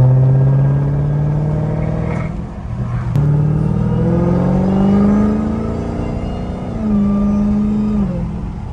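Dodge SRT's V8 engine, heard from inside the cabin, accelerating hard through the gears. The revs climb, drop at an upshift with a click about three seconds in, climb again, and drop at another upshift near the end.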